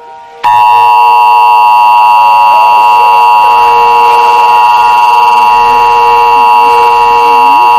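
Emergency Alert System attention signal: a loud, steady two-tone alarm (853 and 960 Hz) that begins about half a second in and holds without a break. It signals that an emergency alert follows, here a tornado warning.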